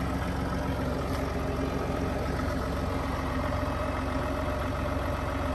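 2021 Ford F-150's 3.0-litre Power Stroke V6 turbodiesel idling steadily, still cold about a minute after a cold start, heard through an aFe DPF-back exhaust.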